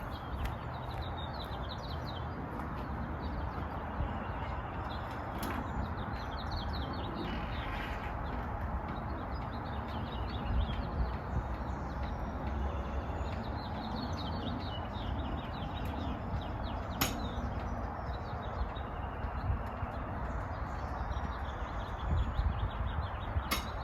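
Birds chirping over a steady low background noise, with a few sharp clicks.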